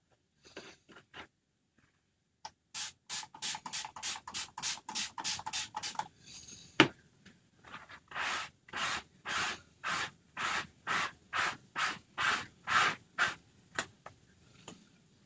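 Rhythmic back-and-forth rubbing, about two or three strokes a second, in two runs with a short pause and a single sharp click between them. It is the sound of scrubbing a silkscreen transfer clean by hand.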